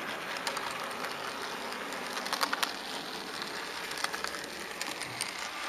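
HO-scale model train running along the track: a steady rushing wheel-and-rail noise with scattered sharp clicks, a cluster of them a little past two seconds in and another about four seconds in.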